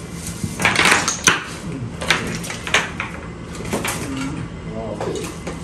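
Gravy-coated shell-on seafood tipped out of a steel bucket onto a sheet-covered table: a series of wet thuds and shell clatters as pieces slide and drop out, the loudest about a second in, with a few more knocks spaced across the next few seconds.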